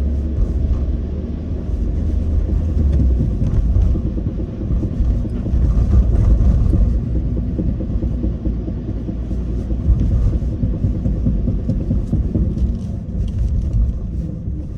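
Cabin sound of a Suzuki Swift Sport ZC31S on the move: steady road and engine rumble with repeated knocking ("kon-kon") from the front. The knocking is a fault that worsens at low-speed cruising and when slowing down, and the owner suspects the drivetrain.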